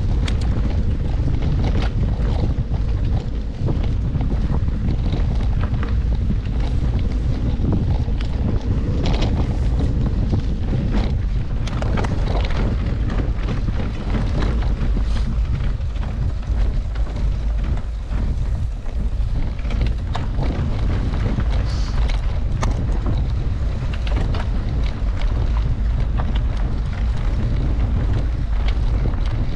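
Wind buffeting the microphone of a camera on a moving mountain bike, a steady low rumble, with scattered small knocks and rattles from the bike going over the trail.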